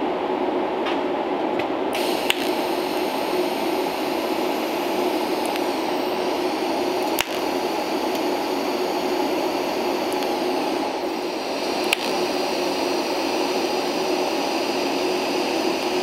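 TIG welding arc hissing steadily as a sheet-metal patch is tack-welded onto a car body. The hiss comes on about two seconds in over a steady lower drone, with three sharp clicks spread through it.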